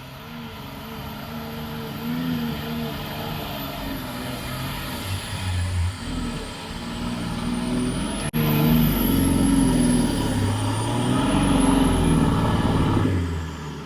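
Off-road vehicle's engine running and revving up and down as it drives, with a thin high whine wavering above it. It gets louder suddenly about eight seconds in and falls away near the end.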